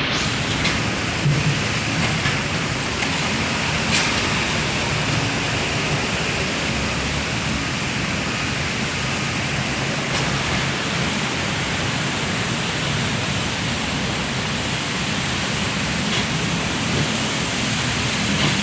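Loud, steady rushing noise with no clear pitch, holding level throughout.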